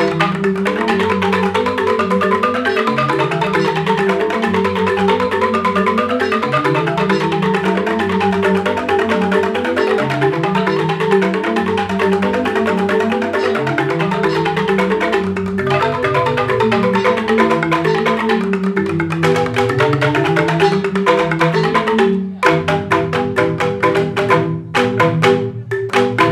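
Balinese joged bumbung bamboo gamelan playing: bamboo xylophones (grantang) run fast interlocking melodic patterns over a low repeating figure. About 22 seconds in, the texture breaks into sharp, separated accented strokes.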